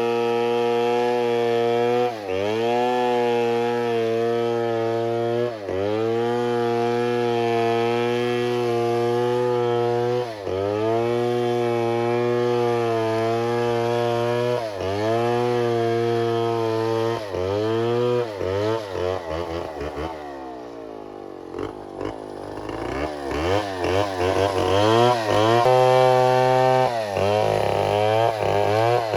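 Two-stroke chainsaw running at high revs, its pitch dipping briefly and recovering every few seconds as it works. About two-thirds of the way in the revs fall and waver unsteadily, then pick up again near the end.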